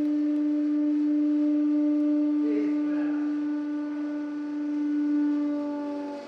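Hydraulic press running with a steady, even-pitched hum while its ram slowly squeezes a thick roll of paper flat.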